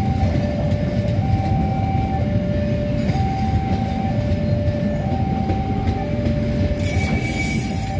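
Passenger train coaches rolling past with a steady low rumble, while a level-crossing warning alarm sounds, alternating between a higher and a lower tone about once a second. A brief high hiss comes in near the end.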